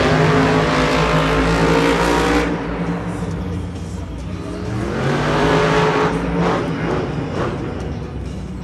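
Blue Thunder monster truck's supercharged V8 engine revving hard as the truck drives across the dirt course. It is loud for the first two and a half seconds, eases off, then climbs again about five seconds in.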